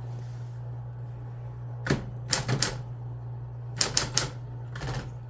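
Typewriter keys striking the paper: a handful of keystrokes in small groups of two or three, starting about two seconds in, slow and uneven as a first-time typist hunts for the keys.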